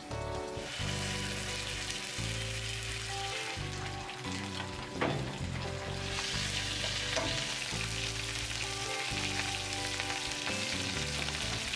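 Meat searing in a black iron frying pan: a steady fat-and-oil sizzle that grows louder a little past halfway. A sharp clack comes about five seconds in.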